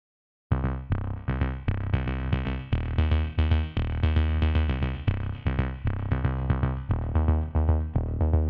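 Electronic background music with a steady drum-machine beat and synthesizer, starting suddenly about half a second in after dead silence.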